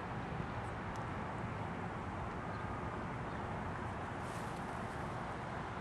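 Outdoor background noise with no voices: an even low rumble and hiss, with a few faint ticks.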